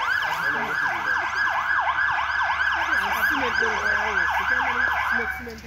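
Fire engine siren in fast yelp mode: rapid up-and-down sweeps about three a second, loud, cutting off about five seconds in.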